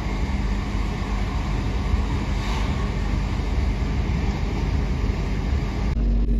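Class 323 electric multiple unit running, heard from inside the carriage: a steady rumble of wheels on rail with a constant motor hum. Near the end there is a brief break, and the hum sits a little higher in pitch.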